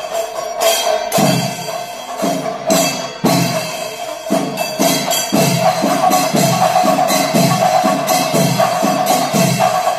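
Kerala temple percussion ensemble playing: drums struck in a fast, even rhythm with cymbal strokes over a steady held tone.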